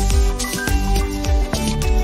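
Background music with a steady beat, about two drum hits a second, under sustained pitched notes.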